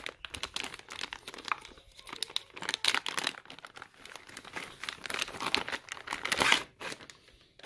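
Heavy plastic zip-top bag crinkling and rustling as it is handled and pulled open, with bursts that are loudest about three seconds in and again near the end.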